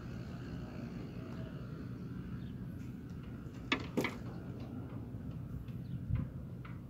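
Metal wheelbarrow clanking twice in quick succession as it is tipped up on end to dump its load, then a duller thump, over a steady low rumble.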